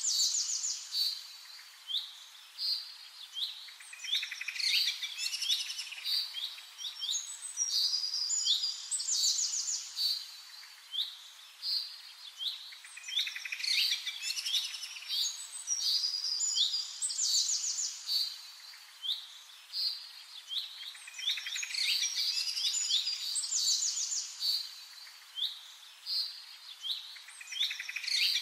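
Songbirds chirping and singing: many short, high chirps and quick trills. A busier cluster of calls recurs about every eight seconds.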